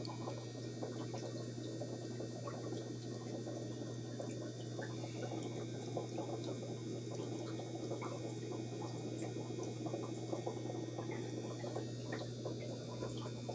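Air-driven aquarium sponge filter bubbling, over a steady low hum.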